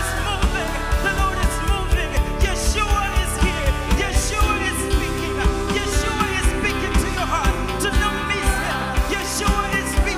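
Live gospel worship band playing: singing over electric bass and an electronic drum kit keeping a steady beat.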